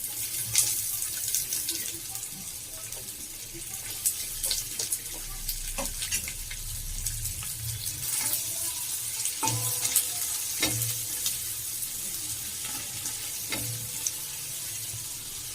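Sliced onions frying in hot oil and butter: a steady sizzle, with occasional sharp clicks from stirring in the pan.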